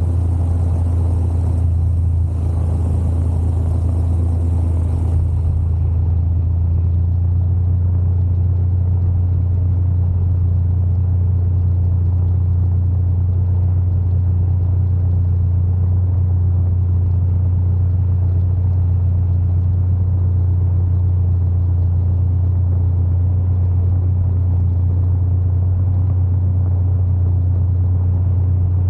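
Polini Thor 130 two-stroke paramotor engine and propeller running steadily in cruise flight, a constant low drone that holds without rising or falling. The higher hiss drops away about five seconds in.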